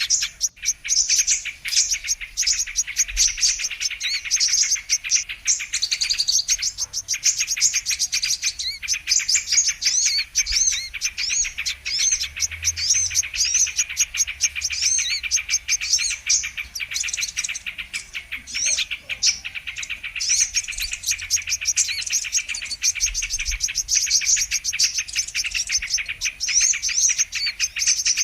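Sunbird song (kolibri kelapa) from a bird-trapping lure recording: a dense, unbroken stream of rapid high-pitched chirps and quick up-and-down twitters, overlapping as if several birds call at once.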